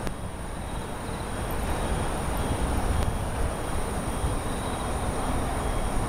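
Steady outdoor city ambience: a low rumble with a hiss over it and a thin high whine.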